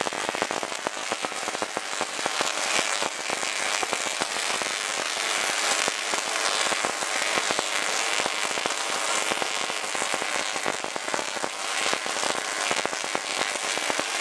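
Tesla coil discharging sparks of about 42 cm, a dense, continuous crackle of electric arcs.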